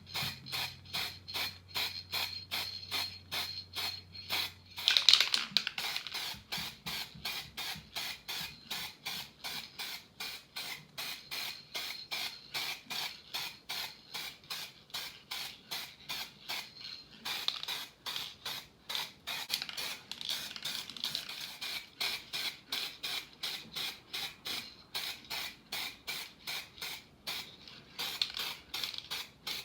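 Rhythmic back-and-forth rubbing or scraping strokes, about three to four a second, as in hand-working a small part with an abrasive. A low hum underneath stops about five seconds in.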